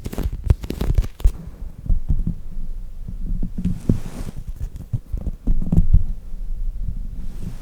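Soft foam squishy toys squeezed and handled right against the microphone: irregular muffled thuds and rumbles with soft clicks, and a brief rustle about four seconds in and again near the end.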